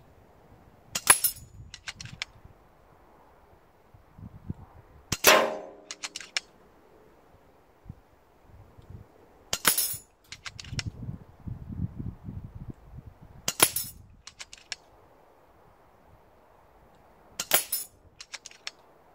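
FX Crown MkII Compact .177 PCP air rifle with shrouded barrel firing five shots, about four seconds apart. Each sharp report is followed by a few fainter clicks.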